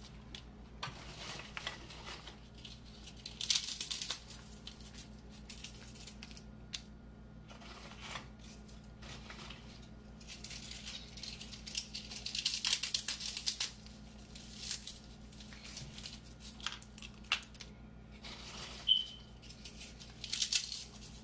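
Crisp fried papdi wafers being broken and crushed by hand and dropped onto the chaat, in several irregular crackling spells over a low steady hum. A single short high ping sounds near the end.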